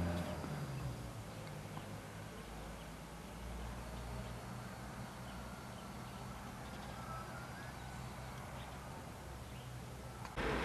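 Faint outdoor ambience: a steady low rumble with a few faint, high, thin chirps, and a low engine-like hum dying away in the first half second.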